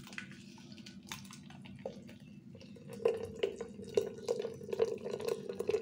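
Ash gourd juice pouring in a thin stream into a stainless steel pot, splashing and trickling, louder from about three seconds in.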